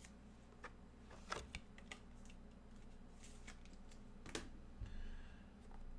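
A few irregular key clicks on a computer keyboard, sparse separate taps rather than steady typing, over a faint steady hum.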